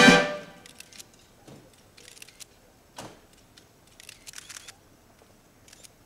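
A brass band's final held chord cuts off right at the start. Then film-camera shutters click in scattered bursts of several quick clicks, as press photographers shoot the greeting.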